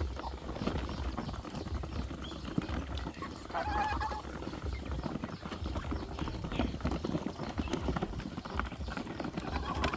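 Domestic geese and ducks, with one clear call about three and a half seconds in, over many small clicks and knocks and a low rumble.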